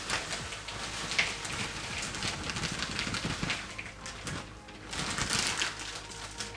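Crushed Oreo cookie crumbs being poured into a bowl of cream cheese: a dense patter of small ticks and rustles that eases off about four seconds in, then picks up again.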